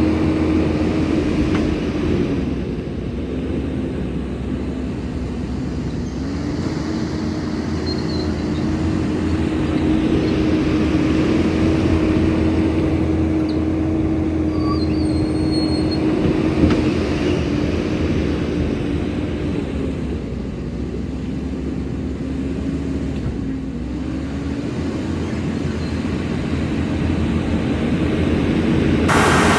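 Skid steer's diesel engine running steadily, its pitch sagging briefly a few times as if under hydraulic load.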